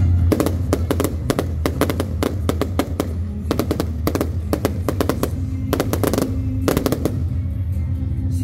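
Fireworks going off in rapid volleys of sharp bangs and crackles, like machine-gun fire, thinning out near the end, with music underneath.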